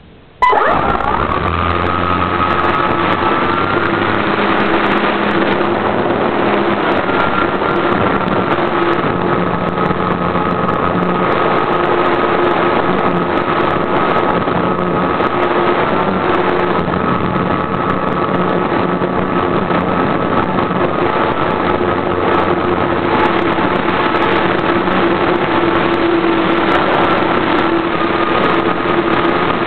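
RC model airplane's motor, heard close up from the onboard camera, starting abruptly about half a second in and then running steadily at a constant speed with only slight changes in pitch.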